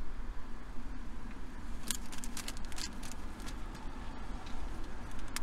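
Plastic packaging crinkling and clicking as it is handled, in a cluster about two seconds in and once more near the end, over a steady low background rumble.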